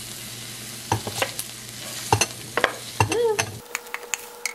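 Food still sizzling in a hot stainless steel skillet while a wooden spatula scrapes it out into a bowl, with repeated scrapes and knocks of spatula on pan. The sizzle cuts off suddenly near the end.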